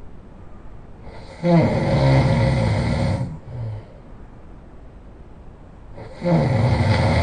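A person snoring loudly: two long snores about four and a half seconds apart, each lasting nearly two seconds, with a short faint breath out after the first.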